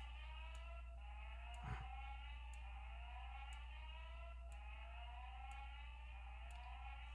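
Fire alarm speaker strobe in alarm after a pull station is pulled, sounding a repeating rising electronic sweep tone. A faint tick comes about once a second, and a steady low hum runs beneath.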